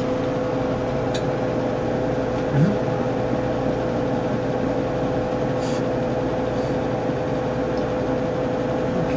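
A steady mechanical hum with a constant mid-pitched tone, broken only by a few faint clicks.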